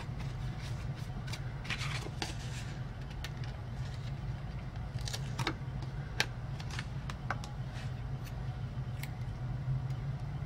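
Paper stickers being handled and pressed into a spiral-bound paper planner: light crinkling of the sticker sheet and scattered small clicks and taps, the sharpest about six seconds in. A steady low hum runs underneath.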